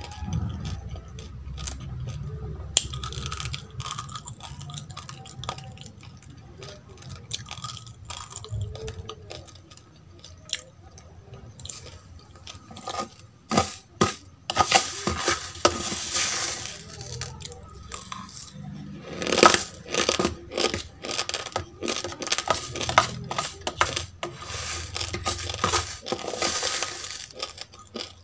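Metal spoon clicking and scraping against a plate as dry roasted rice grains are scooped, with crunching of the hard rice. Sharp clicks run throughout and get busier in the second half, where longer crunchy bursts come about three times.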